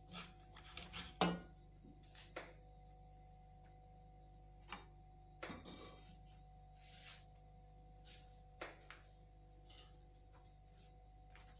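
Slotted spatula scraping and clicking against a nonstick frying pan while chopped dried dates, raisins and coconut are stirred in ghee. There is a quick run of scrapes in the first couple of seconds, the loudest just over a second in, then only occasional single scrapes.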